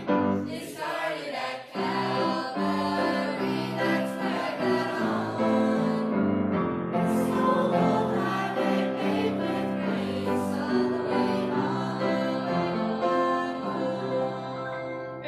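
A small mixed group of teenagers and children singing a gospel song together as a choir, in sustained phrases with short breaks between them.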